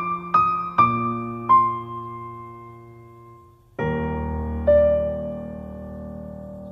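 Background music: slow piano notes that ring and fade, a few single notes at first, then a fuller chord a little before the middle.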